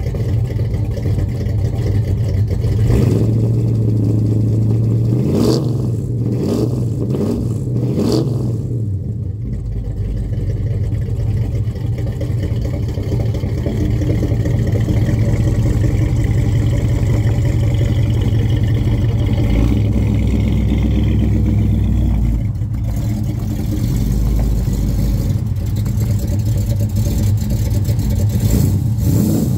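1970 Chevrolet Chevelle's engine running, with several quick rises and falls in engine speed about five to eight seconds in. It then holds a steady drone, and picks up again near the end.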